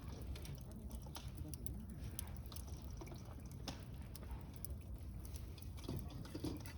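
Campfire crackling faintly, with scattered small ticks and pops over a low steady rumble.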